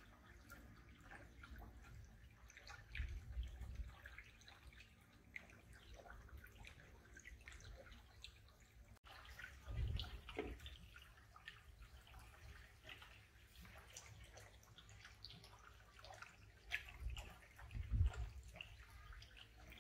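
Faint dripping and trickling of water at a koi pond, a scatter of small drips and splashes, with a few low rumbles about three, ten and seventeen seconds in.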